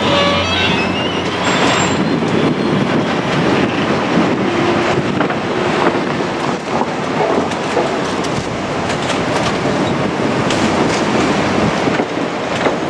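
KiHa 200 diesel railcar running on the line, a steady loud rumble of wheels on rail with clicks over the rail joints. A brief rising squeal at the very start.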